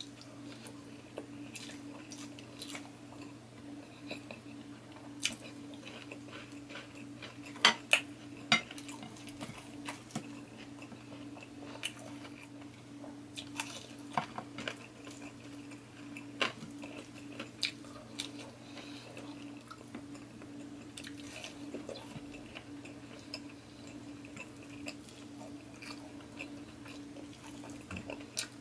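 Close-up eating sounds of a person eating rice and fried pork chop by hand: chewing and mouth noises with many short clicks and light clinks of plates, two sharp ones close together about eight seconds in, over a steady low hum.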